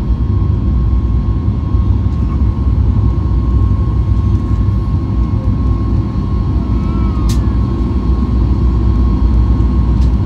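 Cabin noise of a Boeing 737 MAX 8 climbing out just after takeoff: its CFM LEAP-1B engines at climb power give a loud, steady rumble with a steady whine over it, heard from a window seat beside the engine. A brief click comes about seven seconds in.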